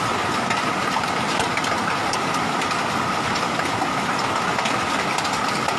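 Rain mixed with hail falling: a steady hiss with scattered small ticks of hailstones striking, under a steady high tone.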